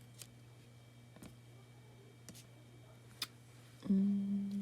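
A few faint, sharp clicks and taps, about one a second, as small paper craft pieces are picked up and set down on the work surface, over a steady low hum. Near the end a short hummed "mm" from a person's voice.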